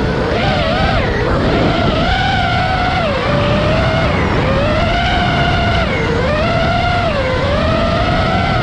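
Five-inch FPV freestyle quadcopter's brushless motors and propellers whining, the pitch swinging up and down with the throttle, with about half a dozen quick drops where the throttle is chopped. A low rumble runs beneath.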